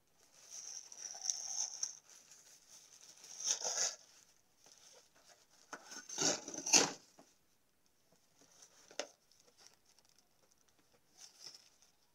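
Plastic and cardboard parcel packaging being rustled and torn open by hand, in several irregular bursts, the loudest about six to seven seconds in.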